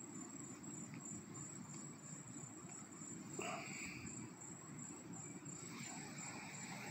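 Insects chirring steadily in the background, a fast high-pitched pulsing trill that does not let up. A brief short sound rises about three and a half seconds in.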